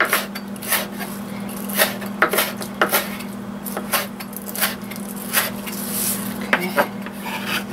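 Kitchen knife chopping fresh lemongrass on a wooden cutting board: irregular sharp strikes on the board, about two a second, over a steady low hum.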